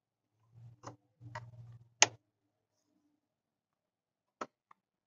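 Small plastic grille clips being handled: four sharp, separate clicks over a few seconds, the one about two seconds in the loudest, with faint handling rumble under the first three.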